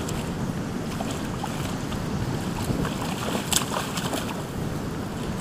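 Steady noise of wind buffeting the microphone over flowing shallow creek water, with a brief sharp click about three and a half seconds in.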